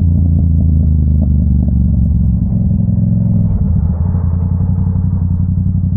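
Yamaha R7's parallel-twin engine running while riding. About three and a half seconds in, the steady note drops to a slower, pulsing low-rpm beat as the bike slows.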